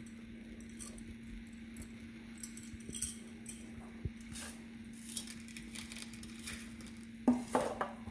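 Scattered light clinks and ticks of kitchen things being handled, over a steady low hum, with a louder cluster of clinks near the end.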